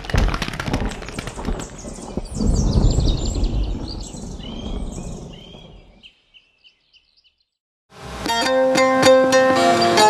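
Birds chirping over a loud rushing noise that fades out about six seconds in. After a short silence, a bağlama (Turkish long-necked saz) starts playing plucked notes about eight seconds in.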